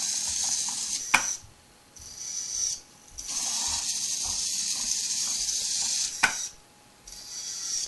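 A small Arduino robot's servo drive motors whining steadily as it drives, cutting off with a click about a second in and again near the end as it stops at an obstacle. In each stop a brief servo whir follows, as the robot looks both ways and turns away, before the drive whine resumes.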